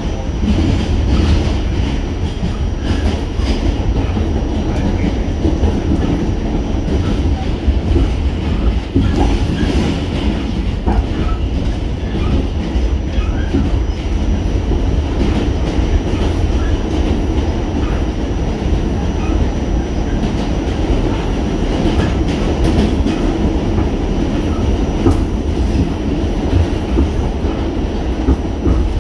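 New York City subway car running along the track, heard from inside the car: a loud, steady rumble with scattered clicks of the wheels over the rails and a faint thin high tone.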